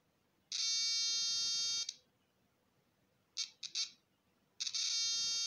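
NE555 astable oscillator beeping through a small loudspeaker as a continuity tester: a steady high-pitched tone for about a second and a half, three short beeps, then the steady tone again near the end. The tone sounds whenever the test leads close the circuit through the wire, showing it has continuity and is in good condition.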